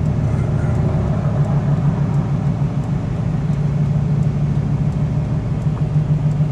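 Steady low rumble of road and engine noise heard inside a car's cabin while it cruises at highway speed.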